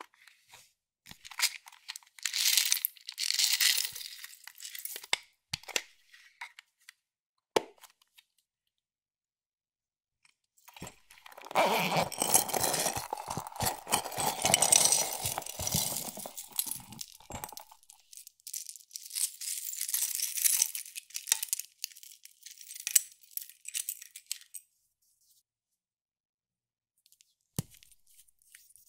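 Hands handling and opening plastic makeup cases: several stretches of scratchy rustling with a tearing, crunching quality, the longest and fullest in the middle, and a few single sharp clicks between them.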